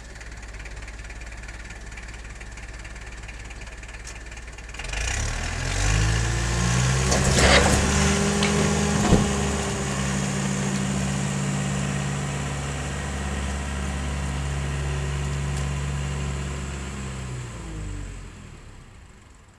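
Farm tractor with a front-end loader, its engine running low and then rising sharply about five seconds in as the loader pushes into the barn wall. Around seven to eight seconds in, old wooden siding cracks and crashes down, with one sharp crack just after. The engine then runs steadily and drops in pitch and fades near the end as the tractor backs away.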